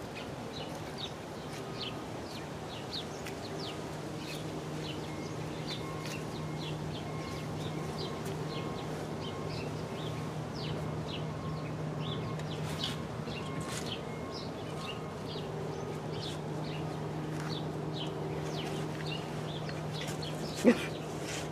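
Small birds chirping in short, repeated calls, over a steady low hum. A single sharp knock near the end.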